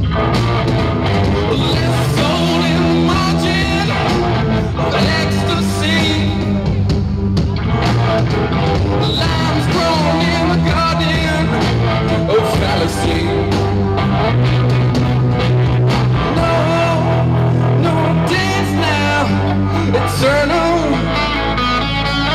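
Rock band playing live: electric guitar through an amplifier and a drum kit, with a male singer's vocals.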